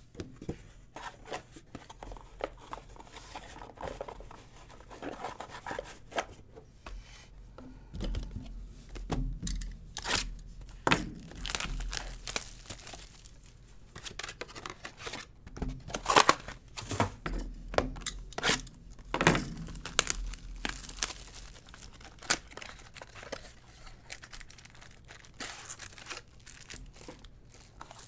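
Cardboard baseball-card box being torn open and its clear plastic wrap crinkled and pulled off: an irregular run of tearing and crinkling with sharp louder rips, the loudest about 16 seconds in.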